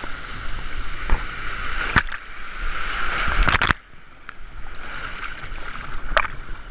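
Water rushing along a water slide under a sliding rider, with a few sharp knocks, then a splashdown into churning water about four seconds in. After it the rushing is quieter and duller.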